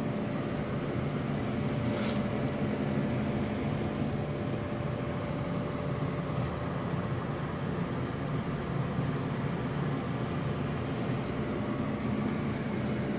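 Steady whir of an electric fan running, with a low hum and a faint steady whine over it; a light click about two seconds in.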